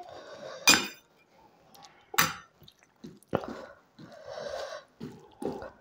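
A metal spoon clinks sharply twice against the plate and steel bowl. Then come short, soft, wet squishing sounds as fingers mix rice with curry.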